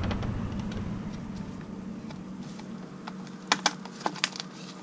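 Small sharp metal clicks and taps from a cable clip and tools being handled on a motorcycle, a cluster of them about three and a half seconds in, after a low rumble that fades out.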